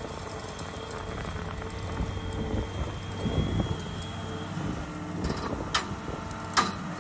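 John Deere 240D excavator's diesel engine running steadily under load as it strains to lift a combine on a chain from its bucket, the machine not quite having enough power for the pick. Two sharp knocks come near the end, the second the loudest.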